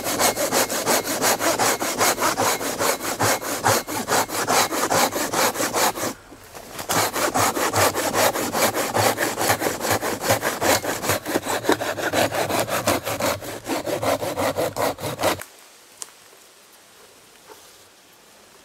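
Silky Bigboy folding saw cutting through the wall of a hollow, rotten tree stump in fast, even strokes. It pauses briefly about six seconds in, then saws on and stops about fifteen seconds in.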